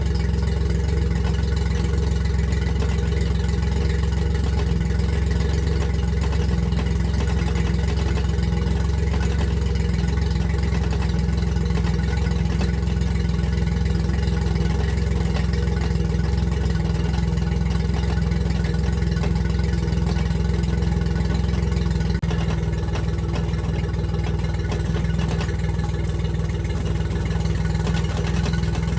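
Yamaha four-stroke outboard motor running steadily at a low, even speed, with a single sharp knock about three-quarters of the way through, after which it runs a little quieter. The owner runs it to show a clicking from the lower unit that he hears in forward gear.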